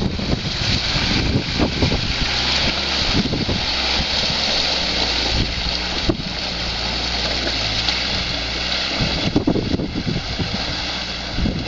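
Off-road vehicle driving: its engine runs at a steady pitch under a loud hissing rush, with irregular knocks and rumbles from the rough ride near the start and again near the end.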